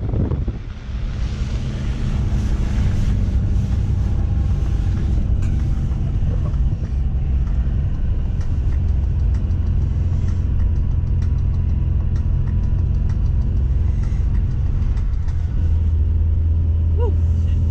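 A 4x4's engine and tyres rumbling steadily, heard from inside the cab as it drives through snow, the rumble growing louder near the end.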